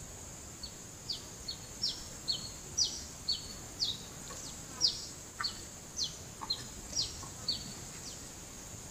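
A bird calling a quick series of about fifteen short notes, each sweeping downward in pitch, roughly two a second. Behind it runs a steady high-pitched insect drone.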